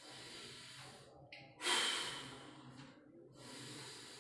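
A man breathing deeply in a breathing exercise: a long breath drawn in through the nose, then a louder breath let out through the mouth about one and a half seconds in, fading over about a second. Another inhale starts near the end.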